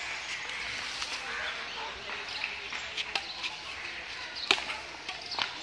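Badminton racket strings hitting a shuttlecock: a few sharp, short pops about a second apart in the second half, over a faint outdoor background hum.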